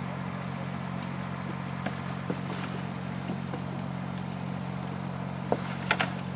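A steady low motor hum under scattered small clicks and rustles of grapes being hand-picked into a plastic picking bin. About five and a half seconds in, a quick clatter of sharp knocks is the loudest sound.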